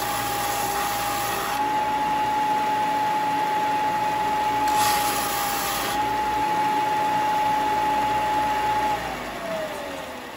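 Bench belt sander running with a steady whine, and a board's end pressed against the moving belt for a spell near the middle, adding a louder hiss. About nine seconds in the motor is switched off and winds down, its whine falling in pitch as it fades.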